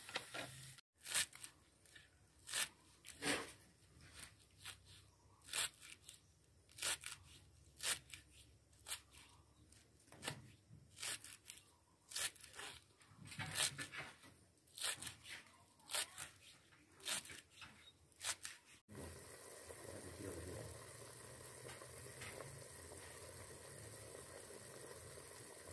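Kitchen knife chopping spring onion and fresh herbs on a thick wooden chopping block: sharp, irregular chops, one or two a second. The chopping stops suddenly about nineteen seconds in, leaving a steady low background noise.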